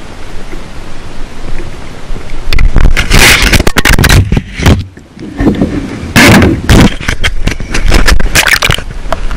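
Loud scraping and rubbing noise from the action camera being handled and covered, in rough, clipping bursts. It starts after a couple of seconds of steady wind and water hiss.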